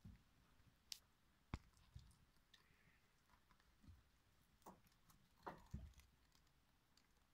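Belgian Giant rabbits gnawing carrot pieces: faint, scattered crunching clicks with a few soft knocks, in otherwise near silence.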